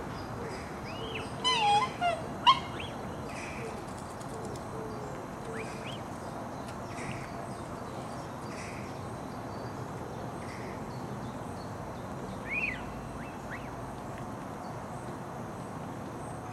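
Black swan cygnets peeping: a few short, high, whistled calls between one and two and a half seconds in, and one more near twelve and a half seconds, over a steady background hiss.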